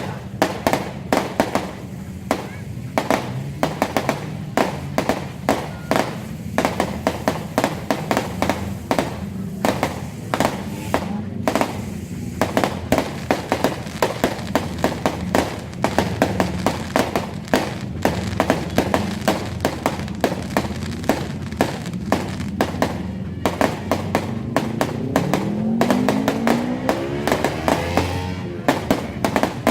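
Fireworks going off in rapid succession, several sharp bangs and crackles a second without let-up. A rising whine joins in near the end.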